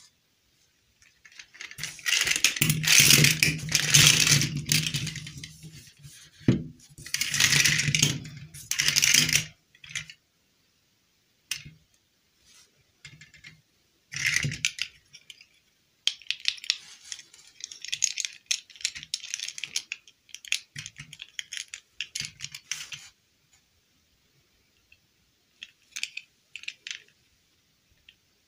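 Small plastic dolls and hard plastic dresses clattering and rattling as a crate of them is tipped out and rummaged through by hand, loudest in bursts during the first several seconds. After that come lighter, scattered clicks and rustles as single pieces are picked up and handled.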